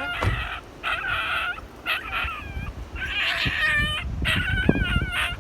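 Injured puppy yelping and whimpering in a string of short, high-pitched cries that bend in pitch, crying from fear and pain.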